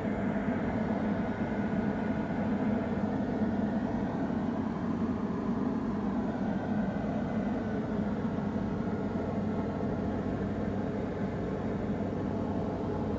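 Diamond DA40 light aircraft's engine and propeller running steadily, heard from inside the cockpit during final approach.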